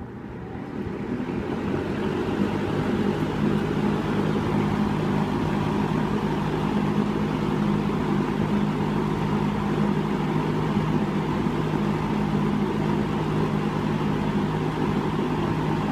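1971 Lakewood P-23 box fan switched to high, coming up to speed over the first two or three seconds and then running steadily: a rush of moving air with a steady motor hum.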